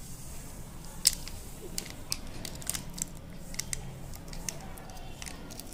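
Scattered light ticks and crinkles, irregular, from a plastic Eno fruit-salt sachet being tipped and shaken as its powder pours into cake batter, over a faint low steady hum.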